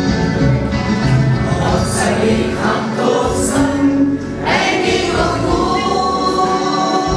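Music with a group of voices singing together, the notes held and gliding.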